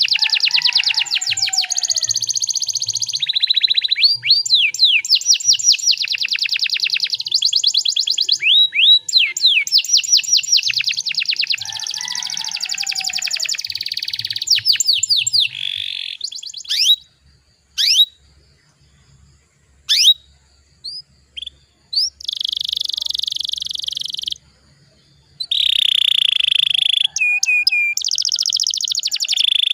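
Domestic canary singing: fast, dense rolling trills and chirp series for about the first sixteen seconds, then scattered single rising chirps with silences between, and two buzzy rolls near the end.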